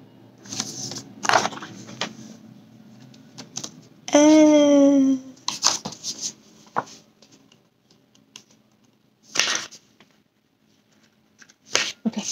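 Pages of a hardcover picture book being handled and fumbled while a page is turned, giving scattered rustles and clicks. A short wordless voice sound, about a second long, comes about four seconds in.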